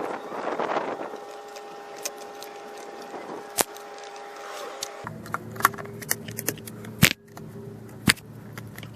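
Scattered sharp clicks and clinks of tools and parts being handled during assembly, over a steady low hum. The background changes abruptly about five seconds in.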